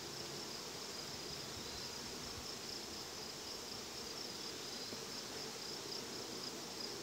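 Honey bees buzzing steadily around an open mating nuc, with a steady high-pitched insect trill behind them.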